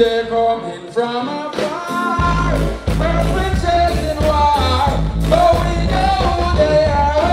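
Live band music with a male singer: sung vocal over drums, guitar and keyboards. The bass is out for the first couple of seconds and kicks in heavily about two seconds in.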